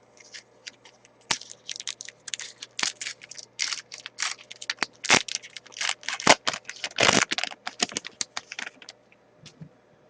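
Trading cards being handled and flipped through: a quick, irregular run of short flicks and scrapes, with a few longer sliding strokes.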